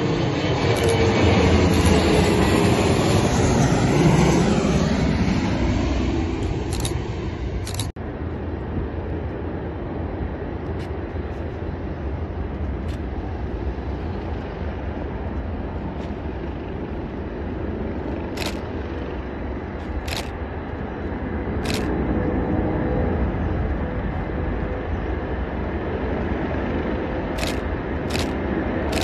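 Jet airliner passing low overhead: its engine noise swells, then falls in pitch as it goes by. About eight seconds in the sound cuts to a steady low rumble of an airport heard from a distance, with a few faint clicks.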